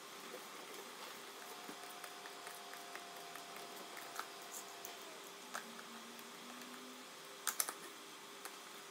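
A sheet of paper being handled and unfolded on a cardboard box: faint rustling with scattered small ticks, and a couple of sharper clicks about seven and a half seconds in.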